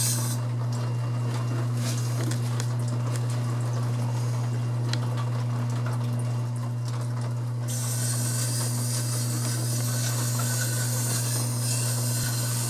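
Slow-speed wet sharpening wheel running with a steady hum while a bench plane blade is ground against the stone to square its edge. The grinding hiss gets louder about eight seconds in.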